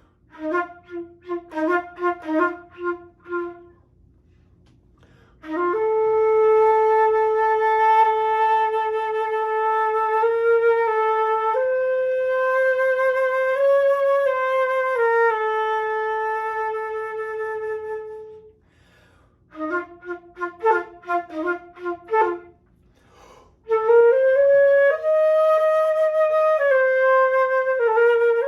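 Solo flute playing alone. It opens with a run of quick, short repeated low notes, then holds long notes that step slowly up and down. Another quick run follows about 20 seconds in, then long held notes again near the end.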